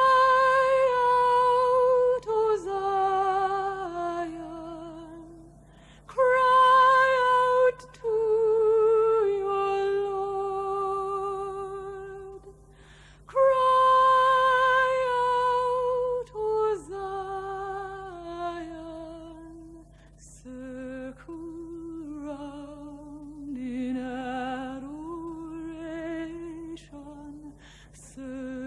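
A woman singing slowly, with vibrato, in long phrases that start high and step downward. Three strong phrases come in the first half, then softer, lower singing follows.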